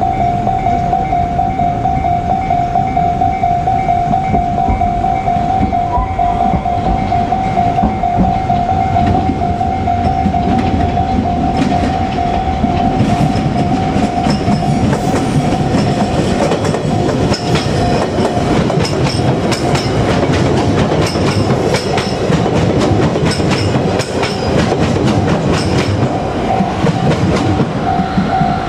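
Japanese level-crossing alarm ringing in a steady pulsing tone while a JR Kyushu electric train passes, its wheels clattering over the rail joints. The train's rumble builds about ten seconds in, drowns the alarm for a while, and dies away near the end, when the alarm is heard again.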